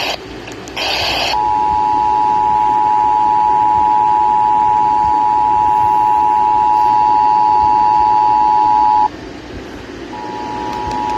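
Emergency Alert System broadcast over the radio: the end of a screechy SAME header data burst, then the two-tone EAS attention signal held steady for about eight seconds. The tone cuts off and starts again about a second later, over faint radio hiss.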